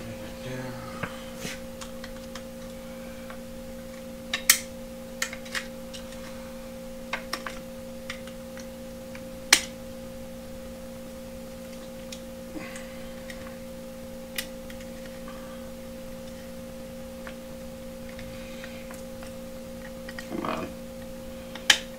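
A steady electrical hum of several fixed tones, with scattered sharp clicks and snaps and brief soft rustling as retail tool packaging is handled and opened; three clicks stand out as the loudest.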